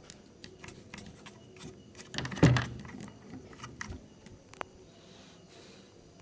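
Scissors snipping hair in a run of quick, irregular clicks that thin out after about three and a half seconds, with one brief louder low-pitched sound about two and a half seconds in.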